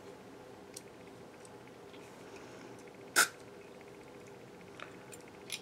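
Aerosol carburetor cleaner sprayed through its thin straw into the small passages of a carburetor part: one short sharp hiss about three seconds in, with a few faint clicks. The cleaner is passing straight through, a sign that the passage is not clogged.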